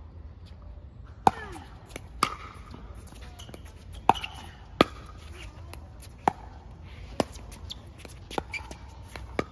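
Pickleball rally: sharp pops of paddles hitting the plastic ball and the ball bouncing on the hard court, about eight in all at irregular intervals of roughly a second.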